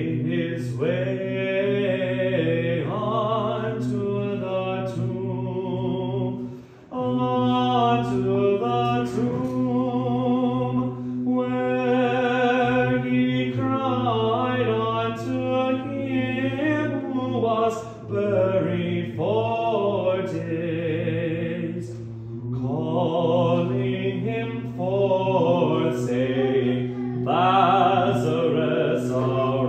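Orthodox church choir singing liturgical chant, a moving melody over a steady low held note, with a brief pause about seven seconds in.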